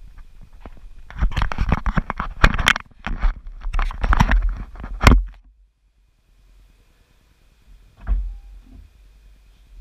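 Handling noise on a GoPro action camera: clicks, knocks and rubbing against the camera for about five seconds, ending in a sharp thump. It then goes abruptly quiet, with one soft thump about three seconds later.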